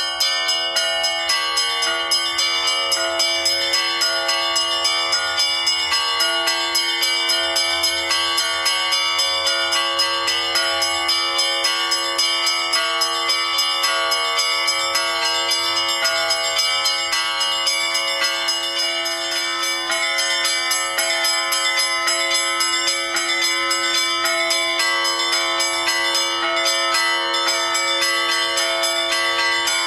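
Bells ringing in a steady, unbroken run of evenly spaced strikes, each note ringing on under the next.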